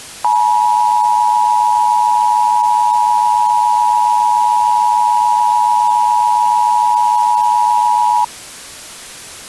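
Emergency Alert System attention signal: two steady tones sounding together, held for about eight seconds and then cutting off abruptly. It is the alert tone that announces an emergency broadcast message.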